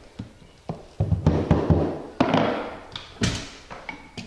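Sharp knocks and taps against wooden base trim as it is set tight to the floor. Several come in quick succession about a second in, and bigger single knocks follow about two and three seconds in and near the end.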